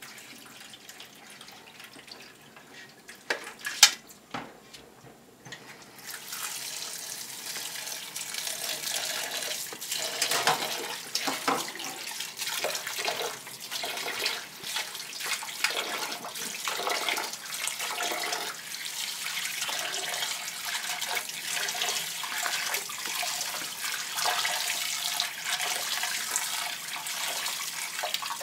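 Kitchen tap running into a steel bowl of soaked split soybeans in a stainless steel sink, with hands swishing and rubbing the beans through the water to wash them. Before the tap comes on, about six seconds in, there are a couple of sharp knocks.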